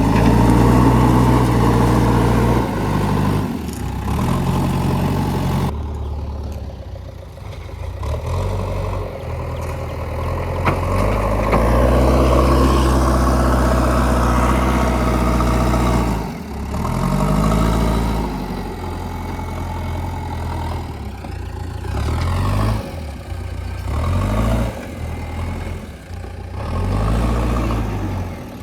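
Diesel engine of a JCB 3DX backhoe loader running under load, its pitch rising and falling again and again as the engine speed changes while the machine works.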